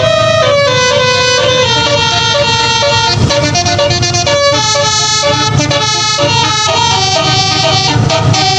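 A Basuri multi-trumpet telolet bus horn with 24-plus notes playing a tune: several air-horn notes sound together and step from pitch to pitch every half second or so, over low engine noise.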